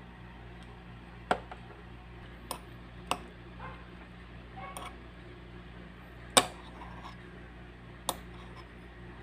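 A tiny metal spoon clinking and scraping against a miniature stainless steel plate and bowl as food is spooned onto rice: about five sharp clicks, the loudest about six seconds in, with softer scrapes between, over a steady low hum.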